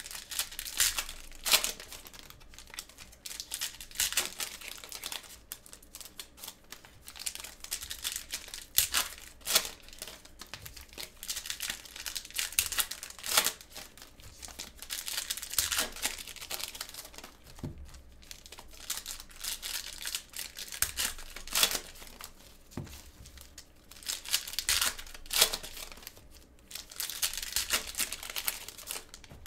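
Foil wrappers of Panini Mosaic basketball card packs crinkling and being torn open by gloved hands, with the cards slid out and handled. Irregular bursts of crinkling and ripping come and go throughout.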